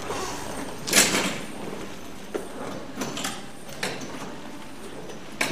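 Manual wheelchair rolling across a hard indoor floor: one sharp clack about a second in, then lighter knocks every second or so.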